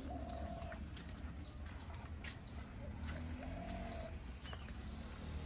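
Outdoor park ambience: a small creature's short, high chirps repeating about once a second, with two longer, lower drawn-out calls, over a steady low rumble.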